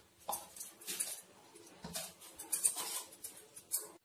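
Wet hands kneading and pressing soft cooked rice-flour dough against a steel plate: a series of irregular short, soft kneading sounds.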